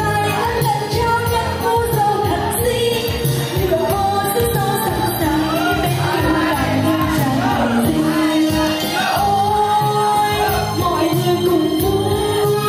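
Music: a Vietnamese song with a singing voice over a steady beat.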